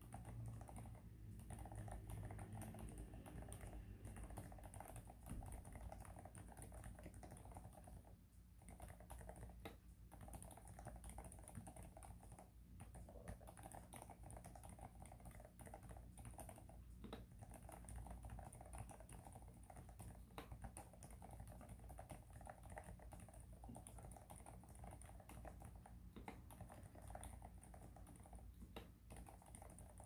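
Continuous typing on a DAREU A98 gasket-mounted mechanical keyboard with Kailh Midnight Pro silent linear switches, a polycarbonate plate and silicone dampening: a quiet, dense patter of muted keystrokes, with a brief pause about eight seconds in.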